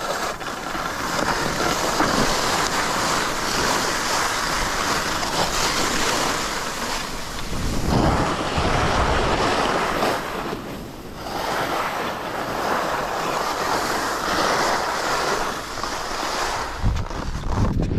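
Skis scraping and hissing over hard-packed, chattery piste snow in a fast descent. The hiss swells and fades every few seconds, with gusts of wind rumbling on the microphone.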